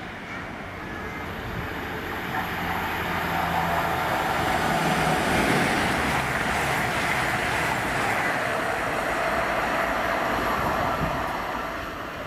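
A train passing on the line: a wide rushing rail noise that swells over the first few seconds, holds steady, then fades near the end.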